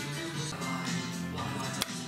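Background music with held notes, and a single sharp click near the end.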